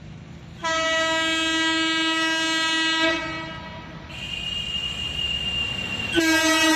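Locomotive air horn: one steady blast of about two and a half seconds starting under a second in, then a fainter, higher single tone. A second blast begins near the end, over the low rumble of an approaching train.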